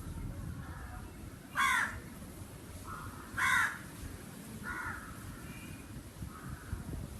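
Crows cawing: two loud harsh caws about a second and a half and three and a half seconds in, with fainter caws before and after them.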